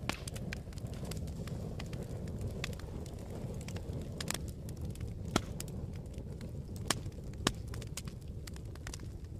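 Wood fire in a fireplace crackling: a steady low sound of the burning logs with scattered sharp pops, three of them louder in the second half.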